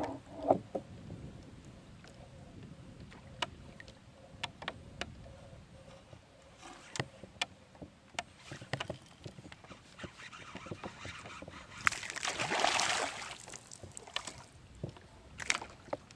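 Scattered light clicks and knocks from a plastic fishing kayak and the fishing gear on it as the rod is handled, with a louder rushing burst of noise about twelve seconds in that lasts about a second and a half.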